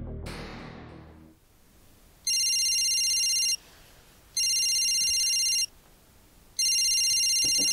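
Mobile phone ringing with a high electronic trilling ring: three rings of just over a second each, about a second apart. Background music fades out in the first second and a half, before the ringing starts.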